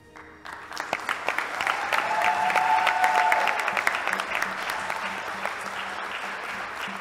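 Audience applauding in a large hall, starting just after the beginning, swelling to a peak about three seconds in and then easing off.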